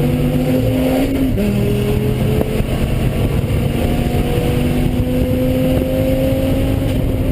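Dodge Viper ACR's V10 engine running hard on track. Its pitch drops sharply about a second in, as on a lift or upshift, then climbs slowly as the car pulls again.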